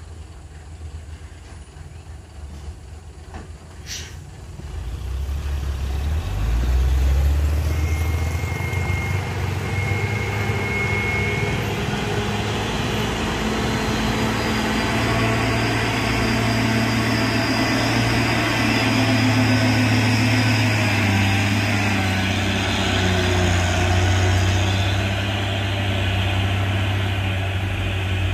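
Diesel engine of a Mitsubishi cargo truck working up a steep incline. It grows louder from about five seconds in as the truck comes close, then runs at steady low revs. There is a single sharp click a little before that.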